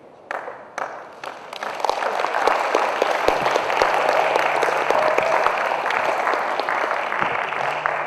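Audience applauding: a few scattered claps at first, building within a couple of seconds into steady full applause.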